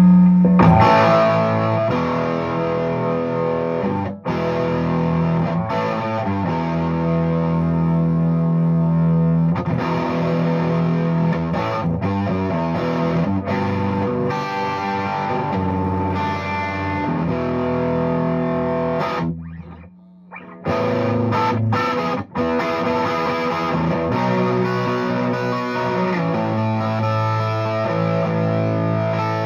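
Gibson ES-335 electric guitar played through a Fuchs Train-45 tube amp with 6V6 power tubes into a single 12-inch Vintage 30 speaker cabinet. It plays ringing chords with a loud first strike and a short pause about twenty seconds in.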